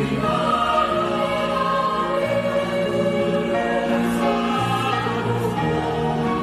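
A mixed-voice youth choir singing in harmony, holding long chords that shift every second or two.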